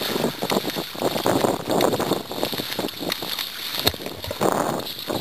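Water splashing and slapping irregularly against a kayak's hull in choppy water, with wind rushing over the microphone.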